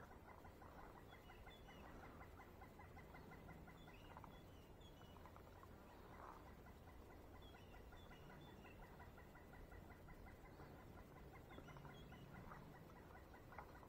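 Near silence outdoors, with faint, short high bird chirps a few times and a faint fine ticking underneath.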